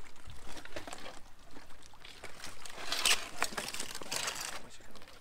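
Waterlogged bicycles being dragged out of a river and up over a concrete bank: scattered clanks and knocks of metal frames, with two louder rushes of scraping and water splashing off them about three and four seconds in.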